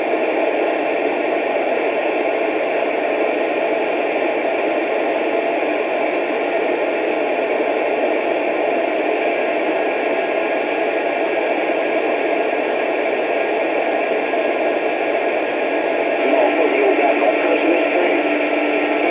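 Two-way radio receiver hissing with steady static through its speaker, the sound of an open channel with no clear signal. About 16 seconds in, a steady low tone and faint garbled sounds come in under the hiss, as a weak transmission keys up.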